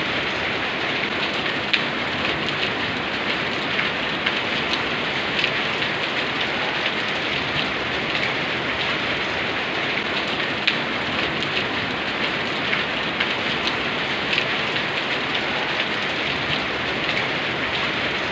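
Steady rain falling on a surface, a continuous hiss with many individual drops ticking through it.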